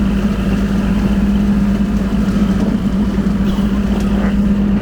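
Kubota L2501 compact tractor's three-cylinder diesel running steadily under load, driving a rotary brush mower through tall field growth.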